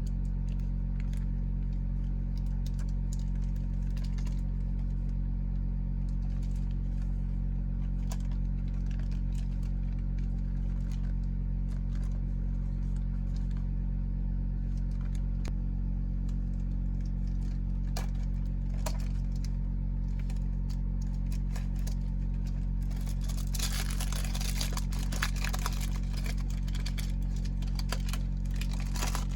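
Small clicks and taps from handling a model car's plastic and card packaging over a steady low hum. Near the end comes a longer stretch of crinkling packaging.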